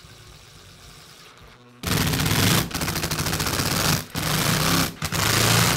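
A faint scraping at first, then about two seconds in a loud, very fast mechanical rattle starts, breaking off briefly three times before it stops.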